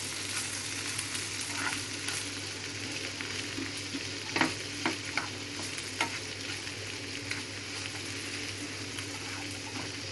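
Diced green bell pepper sizzling in hot oil in a frying pan as it is stirred with a plastic spatula, a steady hiss with a few sharp knocks of the spatula against the pan around the middle. The pepper is being lightly sautéed so that it stays crunchy.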